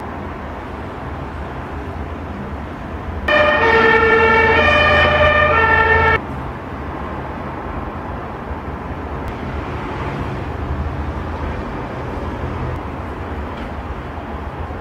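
A loud two-tone horn sounds for about three seconds, switching back and forth between its two pitches, then cuts off. Under it a steady low hum and rumbling carry on.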